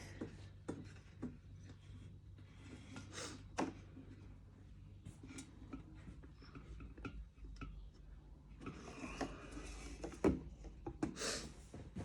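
Scattered small clicks, taps and rubbing as the parts of an electric kettle and a screwdriver are handled during disassembly, with a low steady hum underneath.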